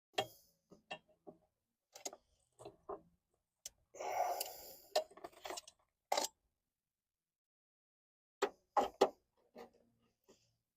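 Scattered clicks and knocks of hands and parts working on the gearbox selector rods while trying to push a rod end back onto its ball joint. About four seconds in comes a short scraping, rustling stretch, and near the end a quick cluster of sharper knocks.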